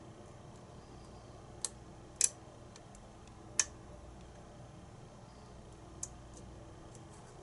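Pin-tumbler lock being picked with a hook pick: four sharp, separate clicks of pins snapping in the cylinder, irregularly spaced, the second and third loudest, with a few faint ticks between.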